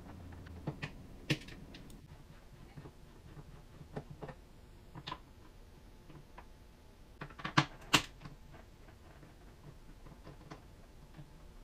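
Scattered light clicks and taps of a hand screwdriver working pan head screws out of the trunk lid hinges, with two sharper clicks a little before eight seconds in.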